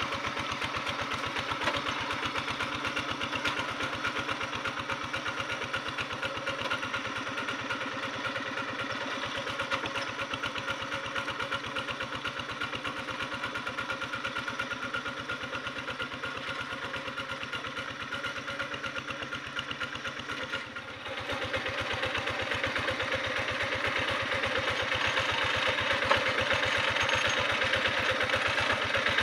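Two-wheel hand tractor's single-cylinder diesel engine running steadily with an even, fast chugging beat while it ploughs wet paddy soil. About two-thirds of the way through there is a brief dip, and after it the engine is louder.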